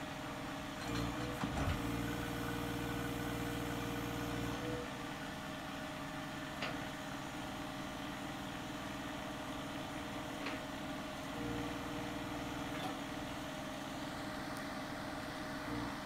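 John Deere 1025R compact tractor's three-cylinder diesel running steadily, with a steady whine that comes in twice as the front loader's hydraulics lift the bucket.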